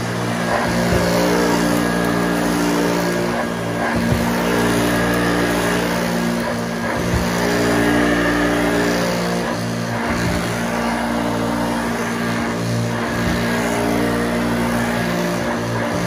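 Hoover Junior Exclusive U1206 upright vacuum cleaner running over carpet, its motor a steady hum that rises and falls slightly in level as it is pushed to and fro. A few soft thumps sound through it.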